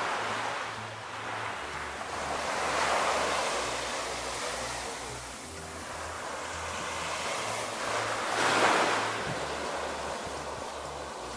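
Small Caribbean waves breaking and washing up onto a sandy beach, the surf swelling and fading in a few slow surges. The loudest surge comes about three quarters of the way through.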